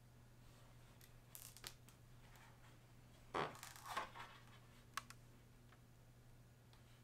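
Faint handling sounds of a tablet and its glass screen protector being worked by hand: a few light clicks, one brief rustle about halfway, and a sharp click a second later.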